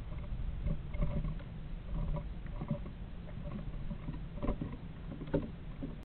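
Southern flying squirrel scrabbling and scratching about inside a nest box as it climbs out, with scattered light scrapes and clicks and two sharper knocks near the end, over a low steady hum.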